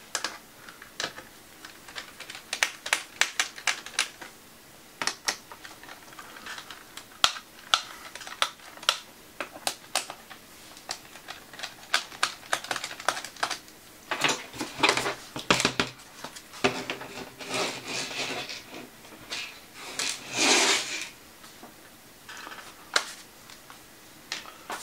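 Irregular clicks and ticks of a small precision screwdriver turning screws out of a laptop's plastic underside, with a few longer scraping sounds of the case and parts being moved on the desk past the halfway point.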